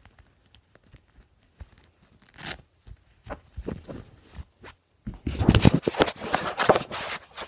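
Handling noise from a phone being picked up: scattered light taps and rustles, then from about five seconds in a loud stretch of rubbing and scraping as hands move over the microphone.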